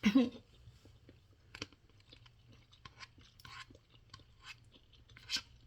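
A person eating hot instant cup noodles: a loud slurp right at the start, then soft, irregular chewing and mouth clicks.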